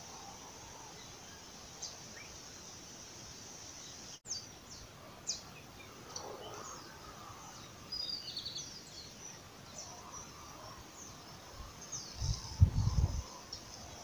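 Outdoor pond-side ambience: a steady background hiss with scattered short, high bird chirps. A brief low rumble near the end is the loudest sound.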